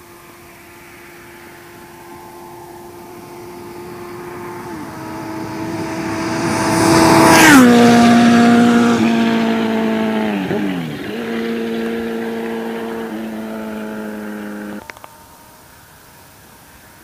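Honda CBR919RR sport bike's inline-four engine at about 250 km/h, a rising whine as it approaches and passes about seven and a half seconds in with a sharp drop in pitch. It then recedes, its pitch stepping down twice, and cuts off suddenly near the end.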